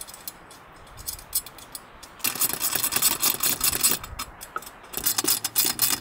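Small metallic clicks and ticks of hand tools on the pan-head screw and nylock nut that clamp the handle of an aluminium Granberg Alaskan chainsaw mill. The clicks are sparse at first and come thick and fast from about two seconds in.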